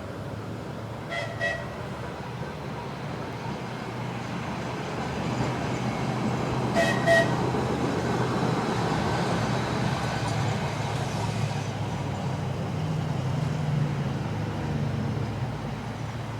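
Ambient vehicle noise: a low engine rumble builds and eases. Two short double toots, each with several pitches, sound about a second in and again about seven seconds in.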